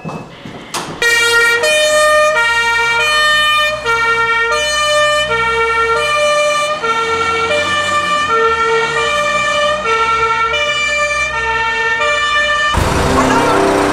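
German two-tone fire engine siren (Martinshorn) sounding, a steady alternating high-low call repeated over and over.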